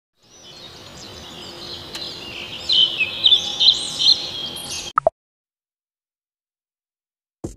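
Edited-in intro sound effect: bird-like chirps and whistles over a hiss, growing louder, then cutting off abruptly about five seconds in, followed by a couple of seconds of silence.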